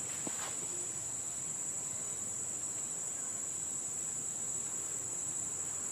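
Steady, unbroken high-pitched drone of insects calling.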